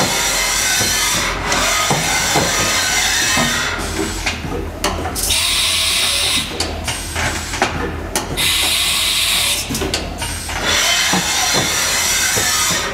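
Haas VF-3B vertical machining center running a short test program with its tool changer: a steady low machine hum with scattered clicks and knocks of moving parts, and two bursts of loud hissing about five and eight seconds in.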